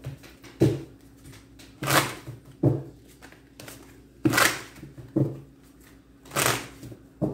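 Tarot cards being handled and laid out: about seven short papery swishes at irregular intervals, over a faint steady hum.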